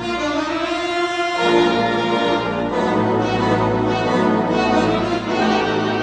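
Orchestral background music with held chords that change a few times.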